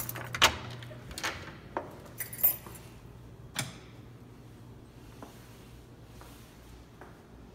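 A few sharp clicks and clinks and a knock in the first four seconds, fitting keys and a door latch as the apartment door is opened, then quieter handling, over a low steady hum.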